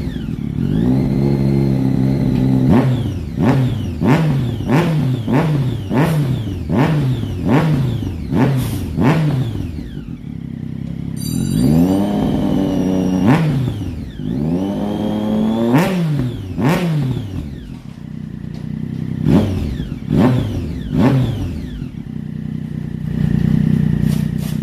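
Triumph Daytona 675's three-cylinder engine revved on the throttle through its exhaust: a run of quick blips, each rising and dropping back, then a couple of longer revs, then a few more blips before it settles to idle near the end.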